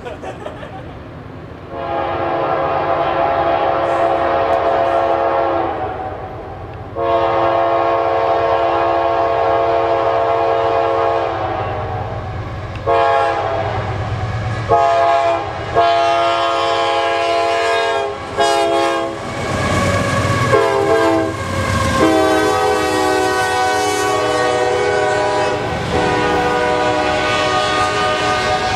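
CSX freight locomotive's air horn sounding a chord in a series of long blasts, the warning for a grade crossing. Near the end, the heavy diesel locomotives and double-stacked intermodal cars roll past close by.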